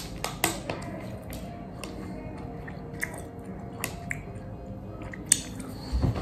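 A person chewing soft gummy candies, with a few sharp wet mouth clicks, over soft background music.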